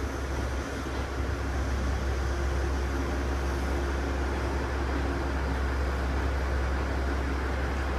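Steady low hum and rumble of a diesel railcar's engine, with a faint steady drone above it and no clear changes or knocks.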